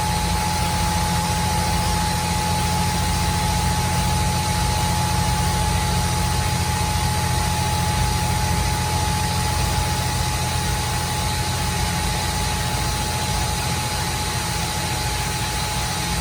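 CNC milling machine taking a light skin cut across a 6061 aluminium block: a steady cutting whine with one constant tone over the machine's hum, unchanged throughout.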